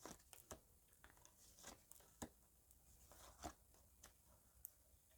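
Faint, scattered rustles and soft clicks of cards being handled and laid out, over near silence, about half a dozen brief touches.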